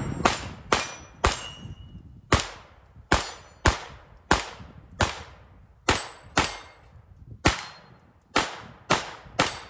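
Kel-Tec CP33 .22 LR pistol firing 40-grain CCI Mini-Mag rounds: fourteen shots at an uneven pace of roughly one to two a second, each with a brief ringing tail. The pistol cycles every round without a jam, the last of the magazine going off just before the end.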